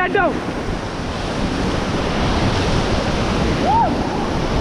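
White-water river rapids rushing loudly around a raft, a steady dense noise of churning water mixed with wind on the microphone. A brief short cry rises and falls near the end.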